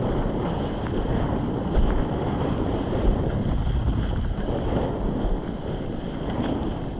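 Wind buffeting the microphone in a steady, rumbling roar, with water rushing beneath a windsurf board.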